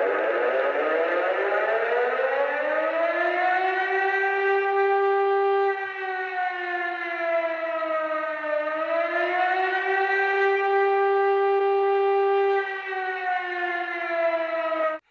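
Civil defense warning siren winding up to a steady wail over the first few seconds. Its pitch dips once about eight seconds in and rises back, then sags slightly near the end before the sound cuts off abruptly.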